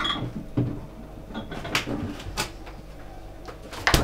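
Rummaging in a fridge: glass beer bottles clinking and knocking a few times, then a louder knock near the end as the fridge door shuts.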